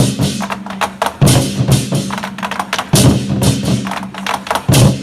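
Chinese war drums beaten in a fast, driving pattern: dense rapid strokes with a heavy accented hit about every second and a half to two seconds.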